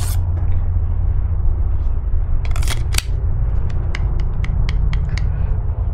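Hard plastic clicks and scrapes of a fixed-blade knife being drawn from and handled with its injection-molded plastic sheath. There is a sharp click at the start, a couple of louder clacks about two and a half to three seconds in, then a run of light ticks. A steady low rumble lies under it all.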